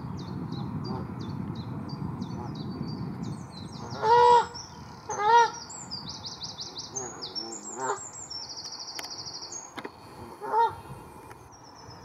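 Canada geese honking: two loud honks about four and five seconds in and one more near the end. Small songbirds sing in the background with quick repeated high chirps and rapid trills.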